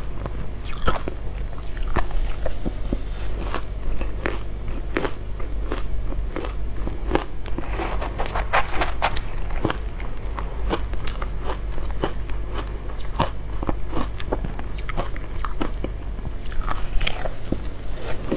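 Crunching and chewing of frozen matcha ice: a rapid run of crisp bites, densest and most crackly about eight to nine seconds in.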